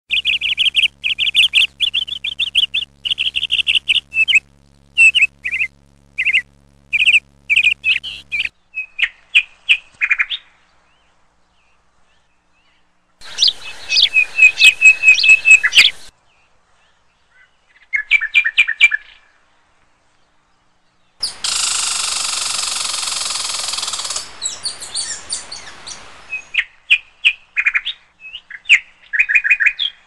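House sparrow chirping: quick runs of short, repeated chirps broken by brief silences. A few seconds past the middle, a steady hiss comes in for about three seconds.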